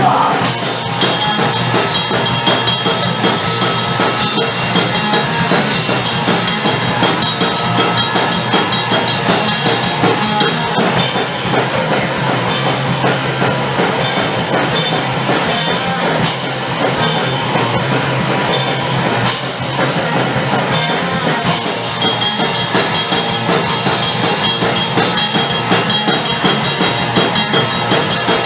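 Punk/hardcore band playing an instrumental stretch: distorted guitars, bass and a fast, driving drum kit.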